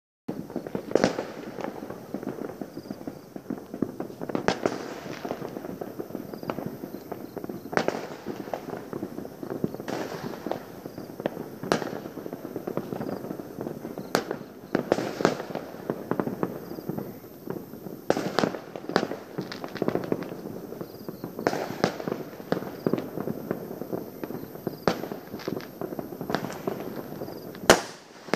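Fireworks going off in the distance: irregular sharp bangs, some overlapping, over a constant background noise of more far-off bursts, with one much louder bang near the end.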